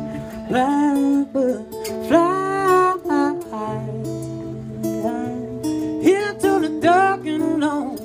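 Solo acoustic guitar fingerpicking a steady accompaniment, with wordless sung phrases that slide in pitch laid over it three times.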